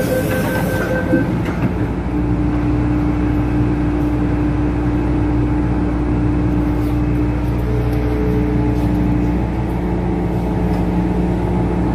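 MTR M-Train electric multiple unit pulling out of a station, with steady running noise and a constant traction hum as it gets under way. The tail of a two-note electronic tone ends about a second in.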